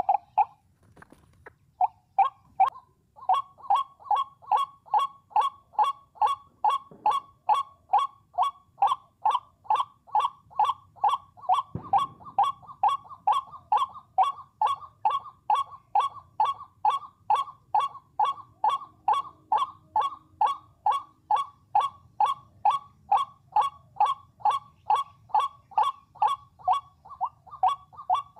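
White-breasted waterhen (ruak-ruak) calling: a long, even run of repeated 'wak' notes, about two to three a second, starting about two seconds in.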